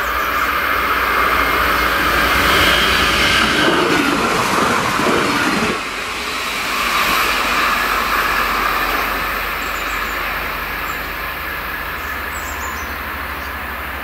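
Red diesel regional train passing the level crossing: its running noise builds as it approaches and peaks about three to six seconds in. The pitch drops as it goes by, and the sound then fades away down the line.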